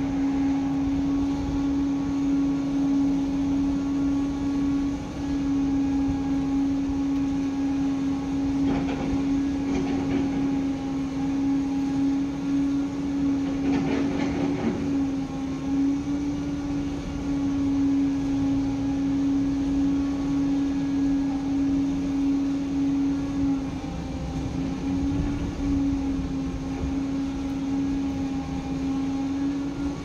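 Heavy diesel machinery running steadily: a concrete mixer truck with its drum turning to discharge down the chute, and a tracked excavator working beside it, together giving a steady droning hum. Two brief rougher noises stand out about nine and fourteen seconds in.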